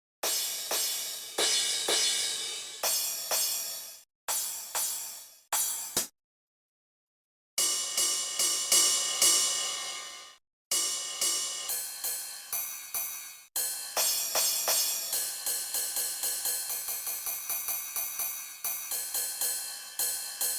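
909-style drum machine cymbal and hi-hat sounds from the EGDR909 app: single metallic hits, each left to ring and fade, with a silent gap of about a second and a half near the middle, then a quicker run of repeated hits in the second half.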